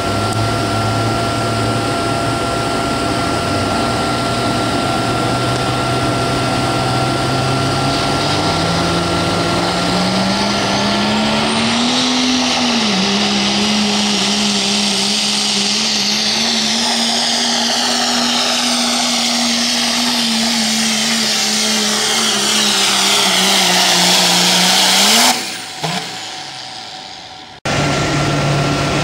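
Diesel pickup engine in a truck-pull run: revs climb over the first dozen seconds, then it holds at high revs under heavy load as the truck drags the sled. The revs rise sharply and the sound cuts off about 25 seconds in. After a cut near the end, another pickup's engine is heard running at lower revs.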